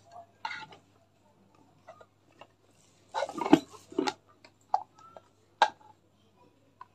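Plastic parts of a manual hand-crank juicer being handled and pulled apart: scattered clicks and knocks, with a louder clatter about three seconds in.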